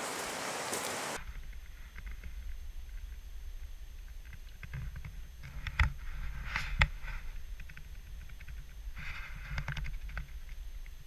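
A steady rushing hiss that cuts off abruptly about a second in, then a muffled low rumble with scattered knocks and rustles, typical of a camera handled while walking. Two sharper knocks come about halfway through.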